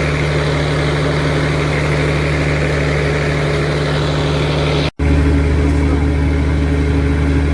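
Engine of a mechanized fishing boat running steadily with a low, even hum. It cuts out for an instant about five seconds in and then carries on.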